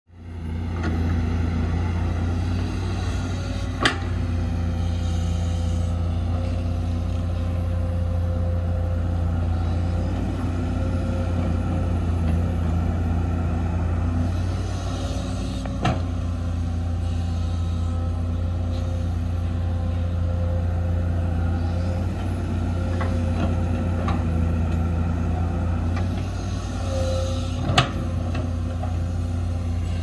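Excavator's diesel engine running steadily at work, with three sharp knocks about twelve seconds apart.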